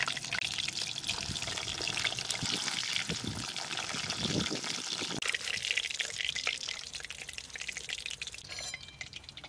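Chitol fish dumplings sizzling as they deep-fry in hot mustard oil in a kadai: a dense, steady crackle of popping bubbles that grows quieter near the end.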